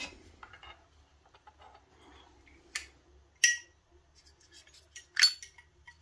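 Zippo-style petrol lighter lid being flipped open and snapped shut: three sharp metallic clinks in the second half. The clink comes from the small cam spring that holds the lid open and closed.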